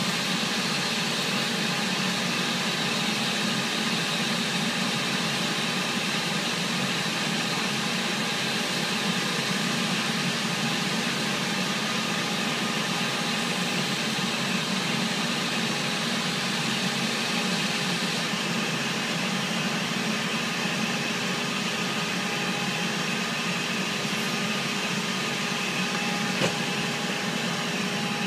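Steady machinery hum and hiss with a faint steady tone running through it, unchanging throughout.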